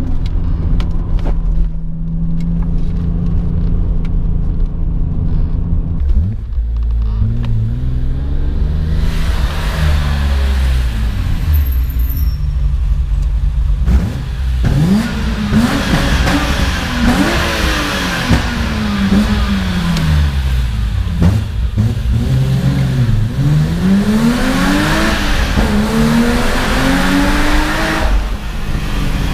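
BMW M5 E34's S38B38 3.8-litre straight-six heard from the cabin, cruising steadily for the first few seconds, then revved hard again and again, its pitch climbing and dropping with each gear change. Through the middle stretch the engine and exhaust ring loudly off tunnel walls.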